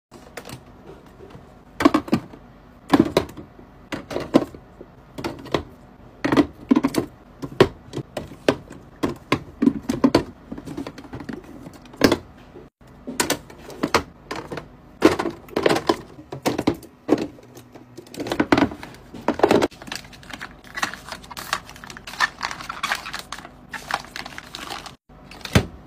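Plastic skincare bottles and jars clicking and knocking one after another as they are set down on shelves and into a small skincare fridge. Near the end, a softer crinkling of foil sheet-mask packets being handled.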